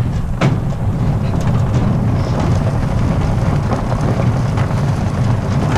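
Steady rumble of a wheeled dog-sled cart rolling over a gravel road behind a running dog team, with wind on the microphone.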